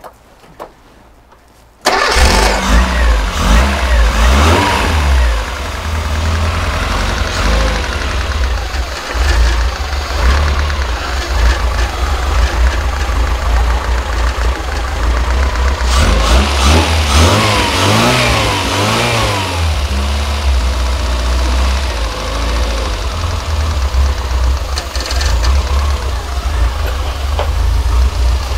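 Austin Metro's BMC A-series four-cylinder engine catching and starting about two seconds in, on a freshly fitted recurved distributor with its ignition timing not yet set. It then runs, with the revs rising and falling twice, about a sixth of the way in and again past the middle.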